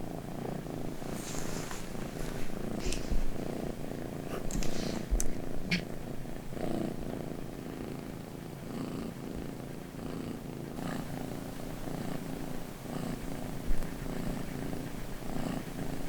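British Shorthair kitten purring, a steady low rumble with scattered faint clicks and rustles on top.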